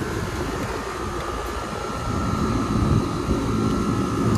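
Carrier rooftop air-conditioning unit running in cooling mode: a steady mechanical whir with a faint high hum, growing louder with a deeper rumble about two seconds in.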